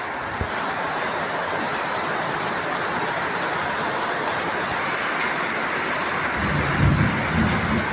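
Heavy rain falling steadily, a dense even hiss, with a low rumble about six and a half seconds in.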